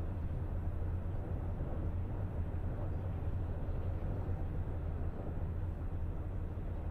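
A steady low rumble with a faint hiss above it, with no separate events.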